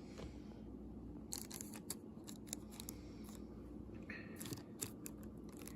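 Faint steady low hum with scattered light clicks and rustles of handling, and a brief faint high tone about four seconds in.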